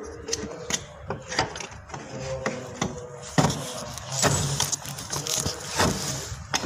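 Irregular metallic clicks and knocks from a running-board mounting bracket being handled and fitted against the vehicle's sill, with one sharp click about three and a half seconds in.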